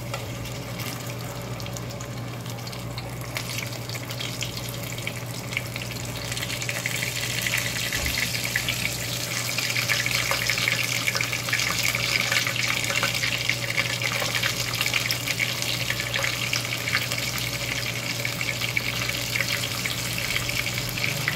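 Flour-dusted shrimp deep-frying in hot oil in a pot: a steady crackling sizzle that gets louder about six seconds in as more shrimp go into the oil.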